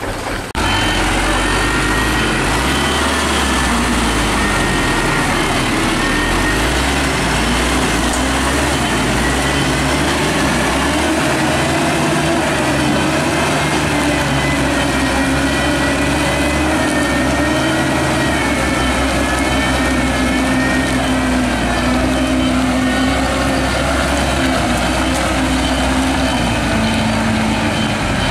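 Heavy diesel truck engine revving hard and labouring under load, its pitch wavering up and down as the truck struggles for grip in deep mud.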